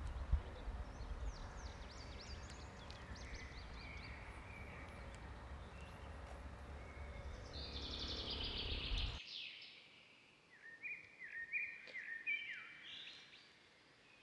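Wild birds chirping and singing over a low wind rumble. About nine seconds in the rumble cuts off abruptly, leaving clearer bird song of short, repeated, stepped notes.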